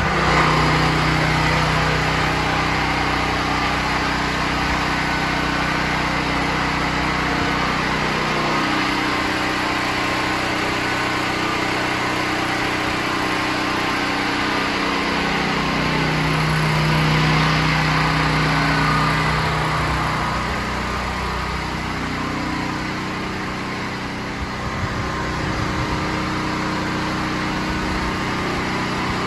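A small engine running steadily throughout, its pitch shifting a little now and then.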